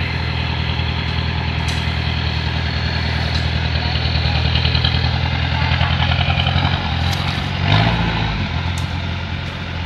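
Off-road vehicle engine running steadily at low revs. About eight seconds in it briefly revs, its pitch rising and falling.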